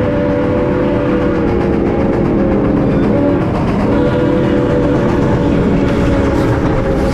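Multi-chime air horn of an EMD SD40 freight locomotive sounding a long chord, the notes weakening and shifting around the middle. Locomotive engine and rail noise run underneath.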